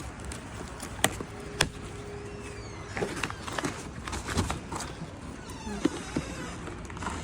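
A cardboard package being handled and opened: two sharp knocks about a second in, then scraping, rustling and short squeaks.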